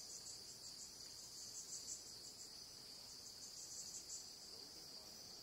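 Faint, steady, high-pitched chorus of forest insects, with a slight uneven flutter.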